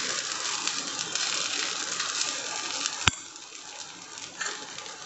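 Ghee sizzling as it is spread over a dosa on a hot iron tawa, a steady hiss. A single sharp click comes about three seconds in, after which the sizzle is quieter.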